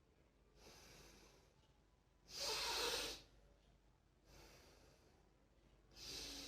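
A man breathing audibly through his nose in alternate-nostril breathing, drawing air in through one nostril and letting it out through the other. There are two strong breaths about three and a half seconds apart, with fainter breaths between them.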